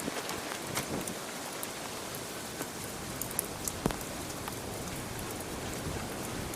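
Steady rain falling, an even hiss with scattered drop ticks and a single clearer knock about four seconds in.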